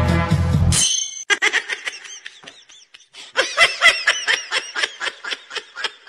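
Background music cuts off about a second in. A cat then gives short chirping meows: a brief run, then a faster run of about four to five a second.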